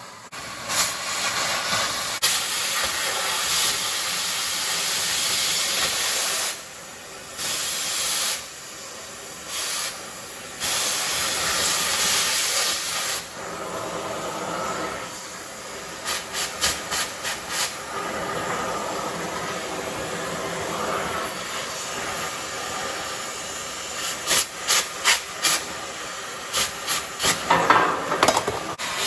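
Cutting torch hissing steadily as it cuts through the plow frame's steel. The hiss stops and starts again a few times, and later there are runs of sharp knocks and pops.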